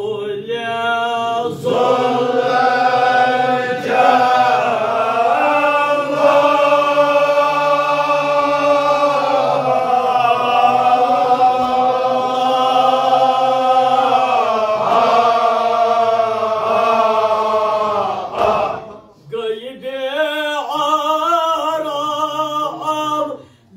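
Group of men chanting a devotional mourning elegy together, unaccompanied, led by the zakir, in long held melodic lines. The singing breaks off briefly near the end and then resumes.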